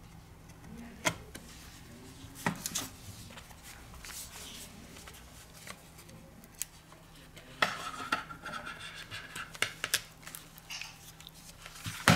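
Light clicks and taps of small tools and parts against a smartphone's hard casing during hand reassembly, with a stretch of scraping and rubbing about two-thirds of the way through.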